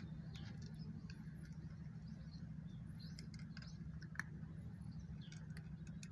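Cat eating: irregular small clicks and crunches of chewing, with one sharper click about four seconds in, over a steady low hum.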